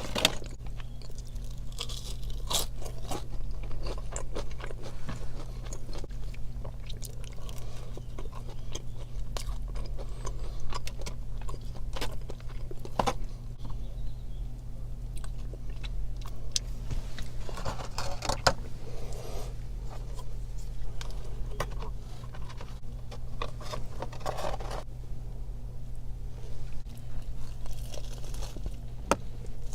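Close-miked eating of a fried chicken meal: crisp crunching bites and steady wet chewing, with scattered sharper crunches, over a faint steady low hum.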